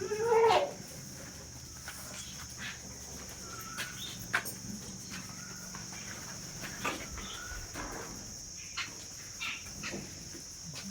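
A goat bleats once at the very start. After that, crickets chirp steadily, with scattered short bird calls.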